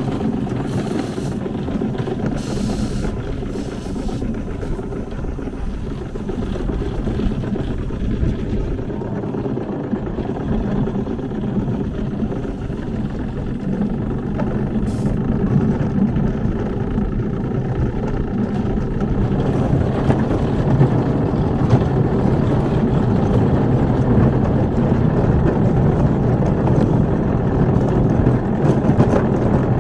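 A small ride-on kart running along a track: a steady low rumble that grows somewhat louder about two-thirds of the way through.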